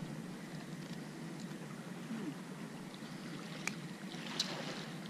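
Steady wash of open water and breeze, with two light, sharp clicks near the end from fishing tackle being handled.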